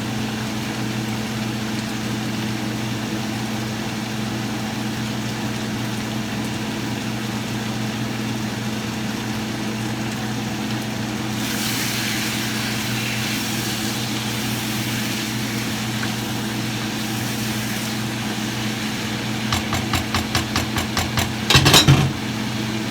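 A steady low mechanical hum throughout, with a stretch of hiss about twelve seconds in. Near the end comes a quick run of clicks, about eight a second, that ends in a loud clatter.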